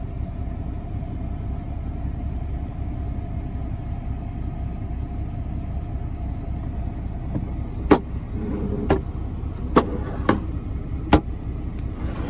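Semi truck's diesel engine idling with a steady low rumble. In the last few seconds come about five sharp clicks and knocks as the CB radio is handled.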